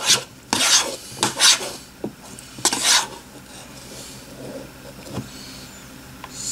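Chunky slime with Play-Doh mixed into it being stirred and scraped in its container: about five short rasping strokes in the first three seconds, then quieter rubbing.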